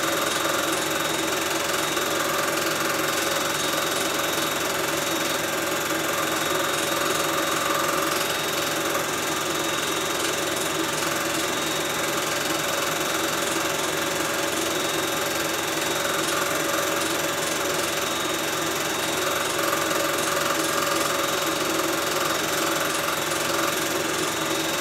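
Film projector running steadily: an even mechanical whirr and clatter with a constant hum.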